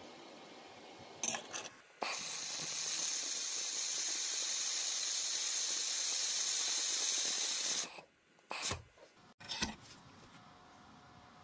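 700 W fiber laser welder with wire feed and nitrogen shielding gas welding 3 mm mild steel: a steady, loud hiss that starts abruptly about two seconds in and cuts off about six seconds later. A few sharp clicks come just before it and twice after it.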